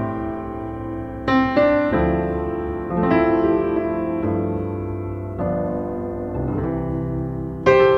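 Slow solo piano music: chords struck every second or two, each left to ring and fade.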